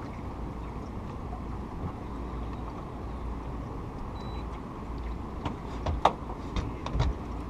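Steady low rumble of a fishing boat running on the river, with several sharp knocks in the last two seconds.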